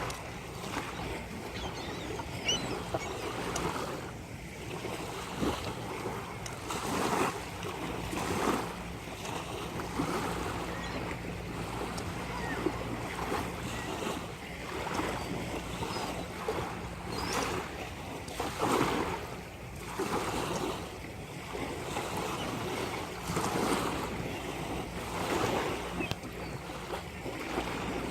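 Ocean surf washing onto a beach, swelling and falling back every few seconds, with wind buffeting the microphone. A faint low steady hum runs underneath from about a third of the way in.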